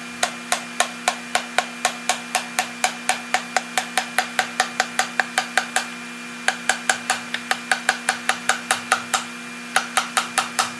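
A plastic mallet tapping a piston down its cylinder bore in a 230 cubic inch flathead straight-six block, light sharp taps about four a second, with short pauses about halfway and again near the end. Each tap drives the piston and its rings out of the ring compressor while the connecting rod slides onto the crank journal.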